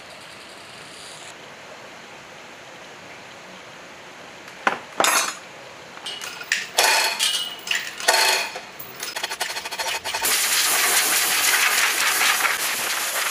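Metal tools and parts clinking and knocking: two sharp knocks about five seconds in, then a run of lighter clinks. From about ten seconds in, a steady hiss takes over.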